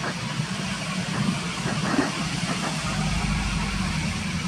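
Boeing 767's twin Pratt & Whitney PW4060 turbofans at takeoff thrust as the jet lifts off and climbs: a steady jet noise, with a deeper rumble growing stronger about three seconds in.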